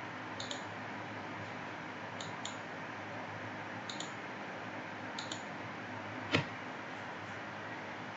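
Computer mouse clicking a few times, mostly as quick press-and-release pairs, over steady microphone hiss and faint hum, with one louder click about six seconds in.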